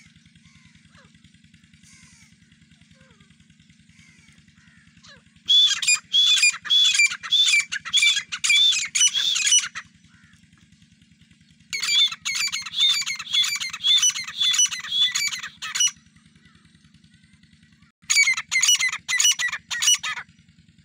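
A male and female grey francolin calling as a pair: three loud bouts of fast, repeated shrill notes, each a few seconds long with short pauses between. A steady low hum runs underneath.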